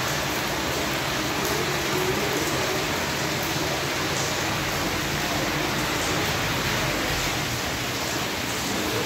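Steady rain falling: a continuous, even hiss of rain.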